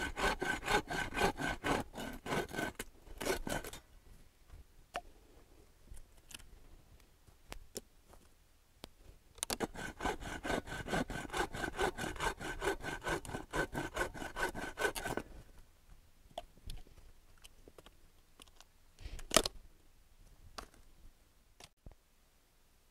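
Hand saw cutting through a dry stick in two bouts of quick, even back-and-forth strokes: the first lasts about four seconds, the second about six seconds, starting near the ten-second mark. Scattered clicks follow, and a short loud noise comes near the end.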